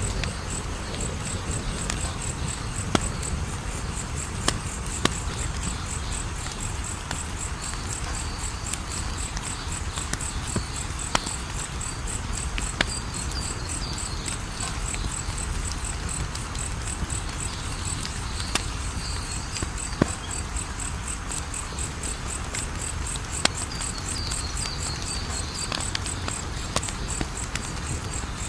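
Wood fire burning with a low steady rumble and scattered sharp crackles and pops, about a dozen in all. A fast, even, high-pitched insect trill runs steadily underneath.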